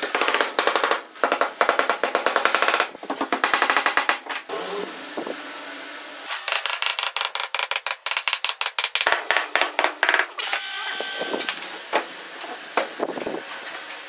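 Music with rapid drumming: runs of fast, even beats broken by short pauses, and a brief rising tone about eleven seconds in.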